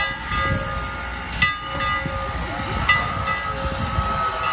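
Steam locomotive at close range with steam hissing and a low rumble, and a ringing metallic strike about every second and a half.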